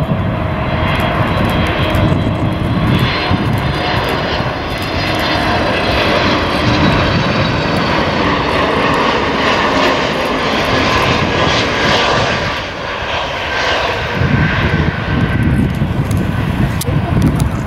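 Airbus A321neo jet airliner's engines on final approach, flying low and close overhead for landing: a steady rush of engine noise with a high whining fan tone over it.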